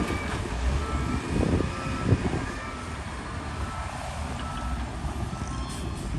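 Heavy earthmoving machinery running with a low engine rumble and a reversing alarm beeping on and off. A few sharp knocks come in the first half.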